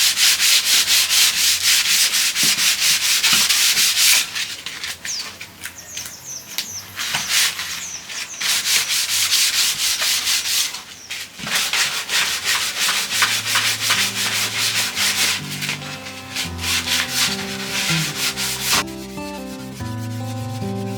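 Sandpaper rubbed back and forth by hand on a wooden board, in quick rhythmic strokes of about five a second. The sanding eases off for several seconds after the start and picks up again, and background music comes in during the second half.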